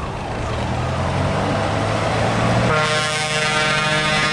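A heavy vehicle engine running as it passes close by, then nearly three seconds in a fire engine's horn sounds one long, steady blast lasting about two seconds.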